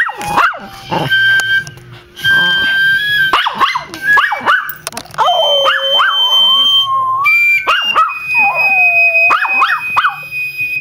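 A dog howls along to a flute playing long, held high notes. Its howls slide up and down in pitch, with short yips in the first half and a long wavering howl in the second.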